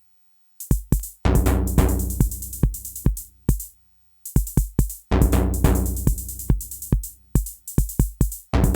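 Sequenced drum-machine pattern from a DIY Roland TR-606 clone, with sharp electronic drum hits over a long, low modular synthesizer note. The pattern stops briefly at the start and again around four seconds in, then comes back.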